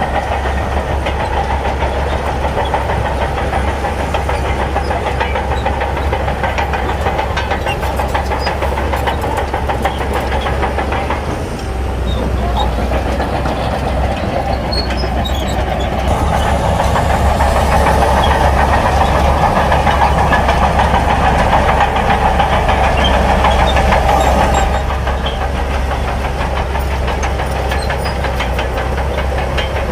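Shantui crawler bulldozer's diesel engine running under load while it cuts sand. It runs steadily, dips briefly about a third of the way in, then grows louder for several seconds past the middle before easing back.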